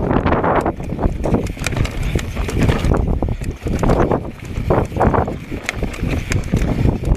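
Mountain bike riding over a rocky trail: tyres and frame knocking and rattling over stones in quick, irregular clicks, with steady wind rush on the chest-mounted camera's microphone.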